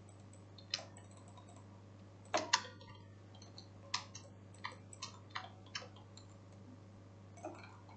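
Irregular scattered clicks of a computer mouse and keyboard, about a dozen, some in quick pairs, over a faint steady low hum.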